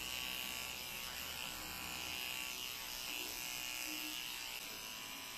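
Electric pet grooming clippers running with a steady buzz as they trim a dog's fur.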